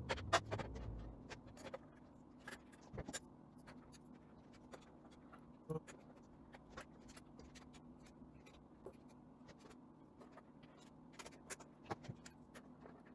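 Faint, irregular small metallic clicks and ticks of an Allen wrench turning screws and of hardware being handled on an aluminium CNC hybrid table, over a low steady hum.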